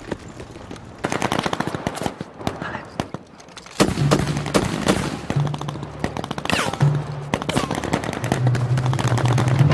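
Machine-gun and rifle fire, rapid shots in long runs starting about a second in. A low steady tone comes in under the shooting about four seconds in.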